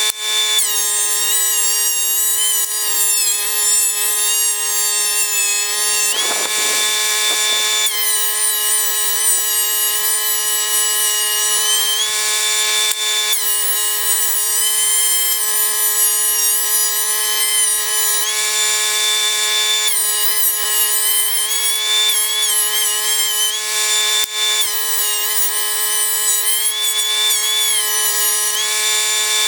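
DeWalt 13-inch thickness planer running with a loud, high whine, the pitch dipping several times for a few seconds as its motor is loaded by pine boards feeding through the cutterhead, then rising again as each board clears.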